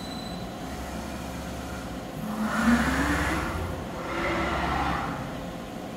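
Fadal VMC15XT vertical machining center moving its axes under power: servo motors and ball screws whirring over a low hum. There are two moves, the first about halfway in with a whine rising in pitch, the second shorter just after.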